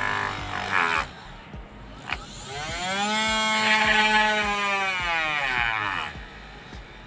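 Home-made drill with a 12 V 775 DC motor whining as it spins up and winds down again. Its pitch rises to a peak about four seconds in and then falls away, with a sharp click just after two seconds.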